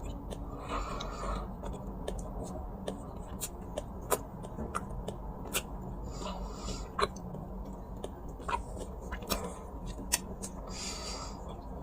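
Dry ASMR clay being crushed and crumbled: sharp, irregular cracks and snaps, with three short stretches of softer hissing.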